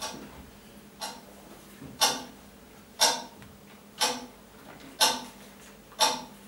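Clock ticking, one sharp tick a second; the first two ticks are faint, and the ticks are louder from about two seconds in.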